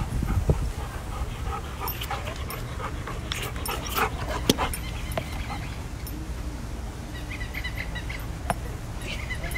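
Golden retriever puppy right by the microphone giving short, high whimpers and yips. A few sharp knocks come through, the loudest about half a second in and about four and a half seconds in.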